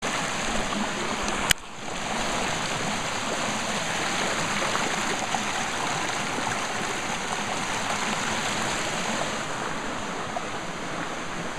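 Small sulfur-water stream rushing and splashing over rocks, a steady rush of water. One sharp click about one and a half seconds in.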